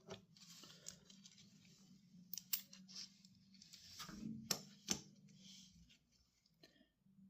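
Light metallic clicks and rustling as the small parts of a motorcycle chain riveting tool and a 530 master link side plate are handled and fitted together, with several sharp clicks in the middle. A steady low hum runs underneath.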